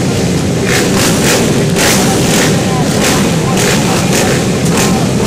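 A pack of motocross bikes revving their engines together behind the starting gate: a loud, dense engine din of many bikes at once, rising and falling in repeated surges.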